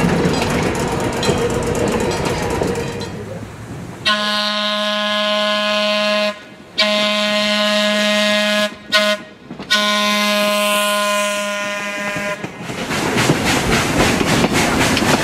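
Electric interurban trolley car's air horn sounding the grade-crossing signal: two long blasts, a very short one and a final long one, on one steady pitch, after the rumble of the car passing. Near the end, a train's wheels click steadily over the rail joints.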